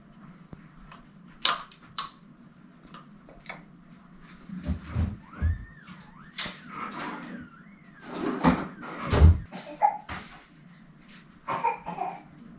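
Scattered knocks and clicks of household objects being handled, with a few dull thumps. A short wavering high squeal rises and falls about six seconds in.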